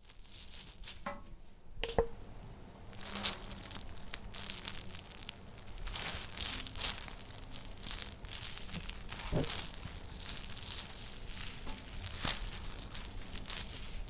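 Horror sound effect of body parts being dragged: a continuous crunching, crackling, tearing texture, broken by sharp cracks now and then, the loudest about two seconds in and near the end.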